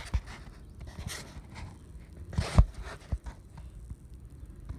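Handling noise on a handheld phone's microphone: scattered rustles and one loud thump about two and a half seconds in.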